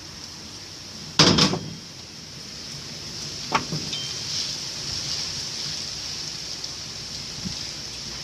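Knocks from handling washing-machine parts during reassembly: a loud double clunk about a second in, then a lighter knock a couple of seconds later, over a steady hiss.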